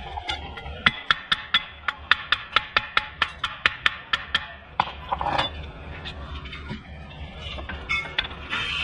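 Rapid, even metallic ticking, about five sharp clicks a second for roughly four seconds, followed by a brief scrape and some loose clatter.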